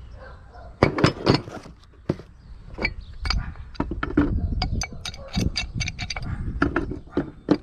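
Metal parts being handled: a gas valve, black iron gas pipe and pipe wrench clinking and knocking against each other and the plastic work table, with two louder knocks about a second in and scattered lighter clicks after.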